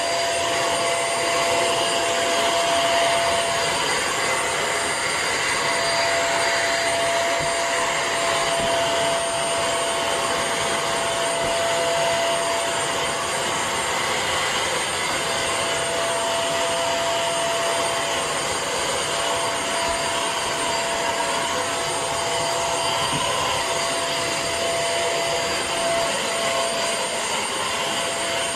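Bissell CrossWave wet-dry floor washer running, a steady motor whine over a constant rushing noise.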